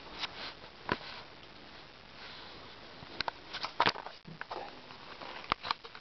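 Handling noise from a handheld compact digital camera: scattered sharp clicks and knocks of fingers and grip on the camera body over a faint hiss, with the sharpest knocks a little under four seconds in and about five and a half seconds in. The sound carries the echo of a small tiled room.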